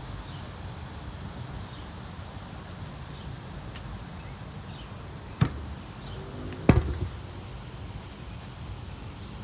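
Two sharp knocks about a second apart, the second louder, over a low steady rumble.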